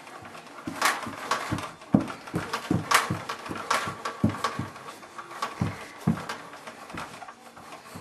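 Baby bouncer (doorway jumper) in use: a run of soft thumps and creaks, about two a second and not quite even, as the baby pushes off the floor and springs back on its straps.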